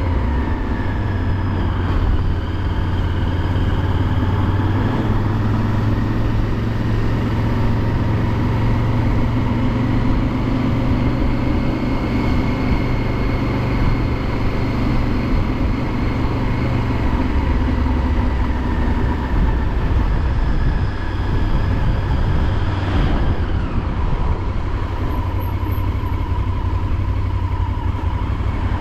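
Motorcycle engine running steadily at road speed, heard from the bike with a steady rush of road and wind noise. The engine note drops lower about two-thirds of the way through.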